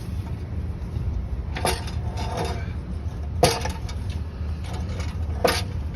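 Portable aircraft jack being slid into place, giving three sharp knocks and clanks about two seconds apart with fainter clatter between, over a steady low rumble.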